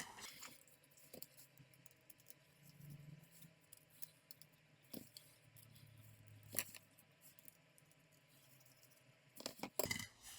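Faint, scattered clicks and taps from small laptop parts being handled and fitted by hand, a few seconds apart, with a brief cluster near the end.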